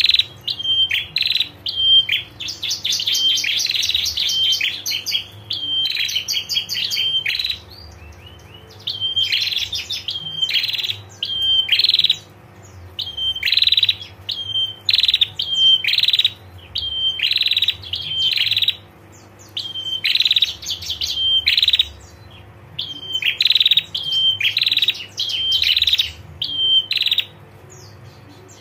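Prinia (prenjak) calling in repeated short bursts of rapid, sharp notes, one burst every second or two, with a longer fast rattling trill in the first several seconds.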